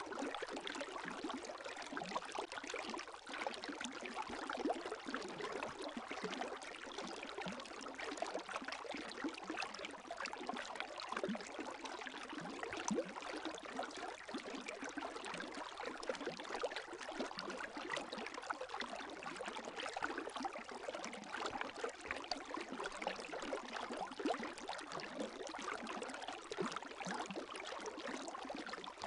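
Gentle lake waves lapping: a steady wash of water dotted with many small, quick splashes and trickles.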